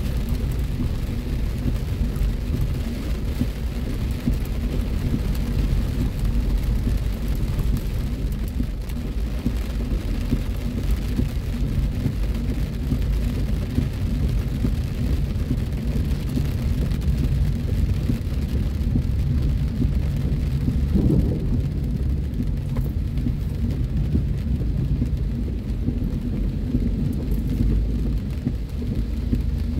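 Heavy rain on a car's roof and windshield, heard from inside the moving car, over a steady low road rumble.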